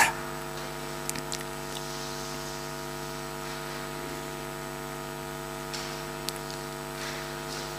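Steady electrical mains hum from the sound system, with a few faint clicks.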